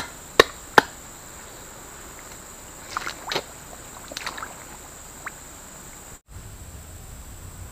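A hand smacking the surface of a small muddy water hole three times in quick succession, sharp slaps about half a second apart, as the angler works a catfish burrow. Softer rustles and splashes follow about three and four seconds in.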